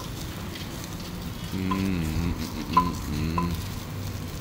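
Marinated meat skewers sizzling over a charcoal grill, a steady crackling hiss, with a few sharp clicks.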